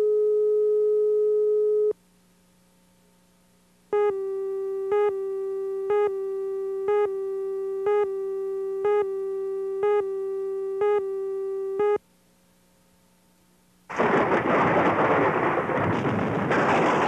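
Videotape leader audio: a steady line-up tone for about two seconds, silence, then a steady tone that swells into a beep once a second for about eight seconds during the slate countdown. After two more seconds of silence, a loud steady rush of noise begins near the end, the soundtrack of the commercial's opening shot.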